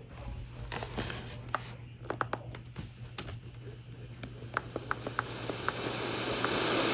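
Off-air radio noise: a steady low hum with scattered sharp clicks and crackles, then static hiss swelling over the last couple of seconds.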